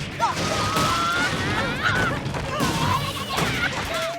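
Cartoon fight sound effects: crashes and knocks mixed with gliding, yowling cries over background music.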